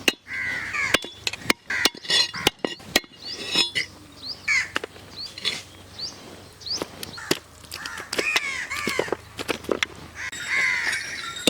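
Crows cawing again and again, mixed with sharp irregular knocks of a knife chopping country-chicken meat, and a few short, quick rising bird chirps.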